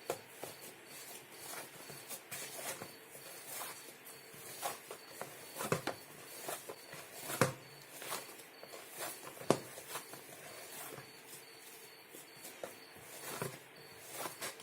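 Hands punching down and kneading risen yeast dough: soft, irregular pats and squishes, with a few sharper short knocks in the middle.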